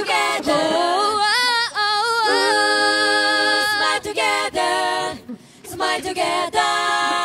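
Background music: a song carried by a sung vocal line, with sliding notes and long held notes, briefly dropping away about five seconds in.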